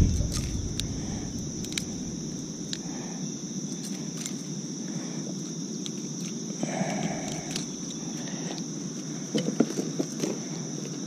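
Steady high-pitched chorus of insects, with scattered small clicks and taps as multi-tool pliers work a crankbait's hooks out of a bass's lip.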